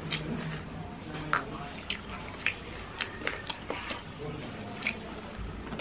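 Close-miked mouth sounds of eating rice and sukuti (Nepali dried meat) by hand: wet chewing clicks and lip smacks, about two or three a second.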